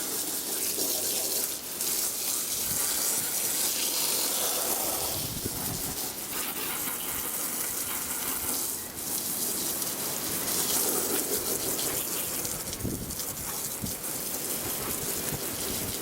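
Water spraying from a hose and splashing onto a soaked car floor carpet, a continuous gushing that rises and falls as the spray moves across the carpet.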